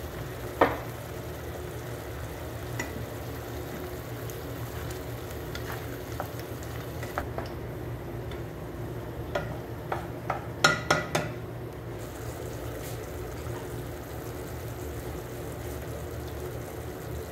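Squid and onions cooking in sauce in a pan on the stove, with metal clinking against the pan: one sharp knock near the start and a quick run of clinks about ten seconds in. A steady low hum runs underneath.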